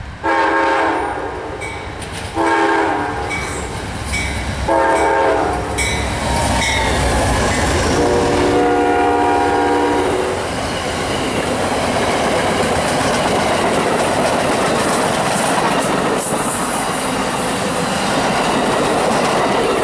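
Amtrak passenger train's GE Genesis locomotive sounding its horn in four blasts, the last one longest and lower in pitch as the locomotive passes. Then comes the steady rush and clickety-clack of the passenger cars rolling by on the rails.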